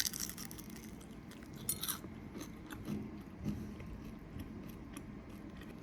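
Quiet chewing with a few light clicks and taps, the sharpest click right at the start.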